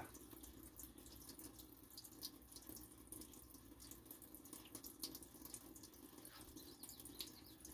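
Near silence: faint room tone with a steady low hum and a few faint, scattered ticks.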